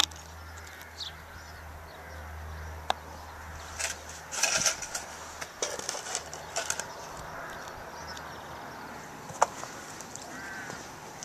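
Scattered footsteps and scuffs on a gravelly road, with a few sharp clicks and occasional bird chirps.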